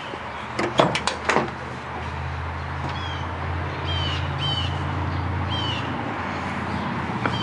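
A few sharp clicks about a second in, then a bird's short falling chirps repeated several times over the low steady hum of a vehicle engine that grows louder.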